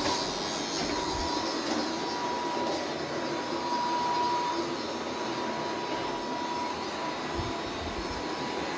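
Robot vacuum cleaner running steadily: an even whirring rush from its suction fan and brushes, with a thin whine that comes and goes over it.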